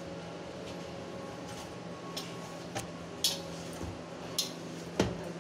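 Hands kneading rice-flour dough in a metal plate: soft squishing, with four sharp clicks and knocks against the plate in the second half, the loudest near the end. A steady low hum runs underneath.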